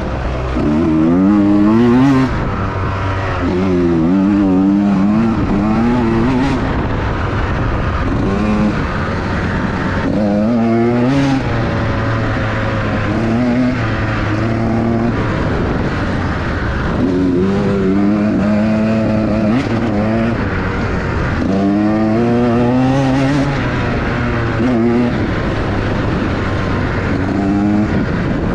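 Small-bore two-stroke dirt bike engine under hard riding, its revs climbing and dropping again and again as the throttle is worked and gears change.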